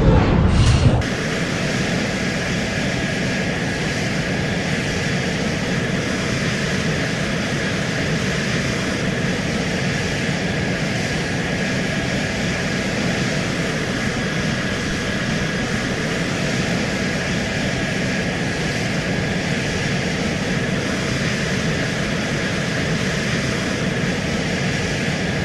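Jet aircraft in flight: a steady engine drone with a faint high whine, holding level without change. A louder rumbling burst ends about a second in.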